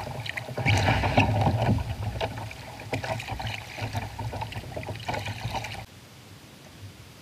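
Kayak paddle strokes splashing in the water, with irregular sharp knocks. The sound drops abruptly to a faint background about six seconds in.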